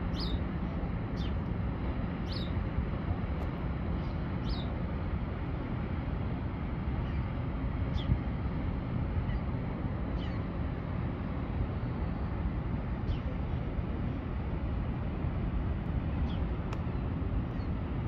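Low steady rumble of the passing bulk carrier Federal Hudson, with short high descending bird chirps every second or few.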